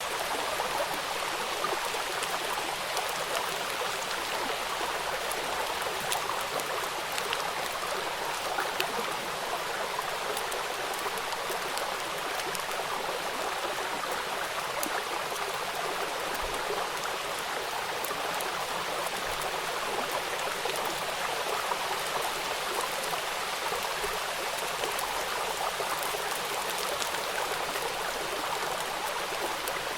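Rain falling on a river: a steady wash of water with fine drop ticks scattered through it.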